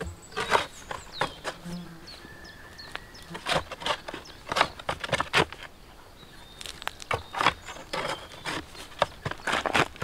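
Metal shovel blade stabbing and scraping into stony soil while digging a pit, with irregular crunching strokes of dirt and stones, about a dozen in all, some in quick runs.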